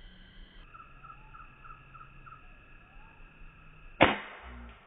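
A single sharp shot about four seconds in, fired at a red junglefowl in the treetops, with insects buzzing in steady pulses of about four to five a second around it.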